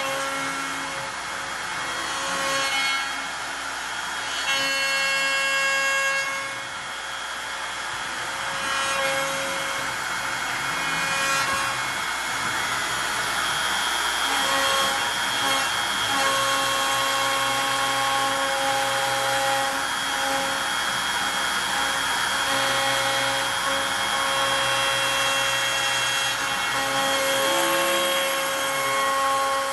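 CNC router carving a wooden sign: the router spindle runs steadily with the noise of the bit cutting wood, and steady tones change pitch every second or two as the machine moves along its path.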